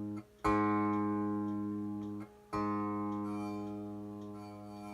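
A tanpura string plucked twice, about half a second in and again about two and a half seconds in, each note ringing and slowly dying away with a bright spread of overtones. A cotton thread sits under the string on the jawari (bridge), being moved to find the sweet spot that gives the string its buzzing, live sound.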